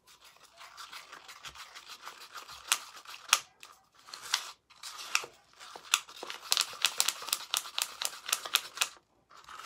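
Wooden craft stick stirring glow powder into Mod Podge in a clear plastic cup: quick repeated scraping and clicking of the stick against the cup's sides and bottom, stopping about nine seconds in.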